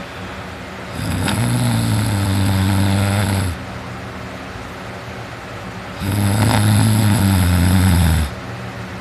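A teenager snoring while sleeping on his back: two long, low-pitched snores, each about two and a half seconds, the first about a second in and the second about six seconds in.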